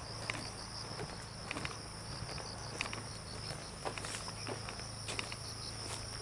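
Insects chirping steadily in a high, evenly pulsing trill, with scattered faint clicks and rustles.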